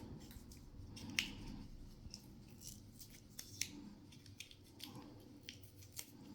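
Hands working with small plumbing parts: a scattering of light clicks and snips, the sharpest about a second in, with more every second or so.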